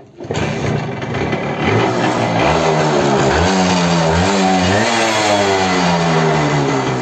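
TVS Suzuki Max 100 motorcycle's small two-stroke single-cylinder engine running and being revved through the exhaust. The sound comes in suddenly, the pitch climbs and dips a couple of times, then holds high and eases down slowly near the end.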